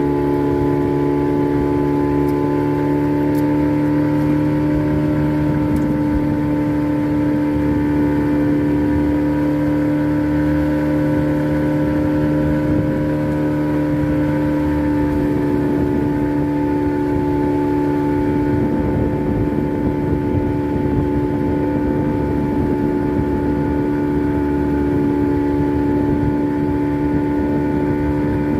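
A fishing boat's engine running at a steady speed: a constant, even drone that does not rise or fall.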